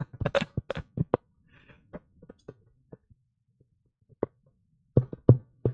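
A series of short knocks and taps: a quick run of them in the first second, a few faint ones in the middle, and a louder cluster of three or four near the end.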